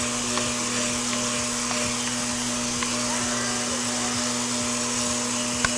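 Countertop blender running at a steady speed, puréeing a liquid adobo of tomato, guajillo chiles and achiote dissolved in orange juice.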